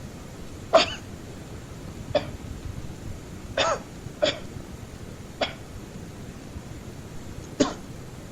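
A series of short, sharp vocal bursts, six of them at uneven intervals, over a steady hiss.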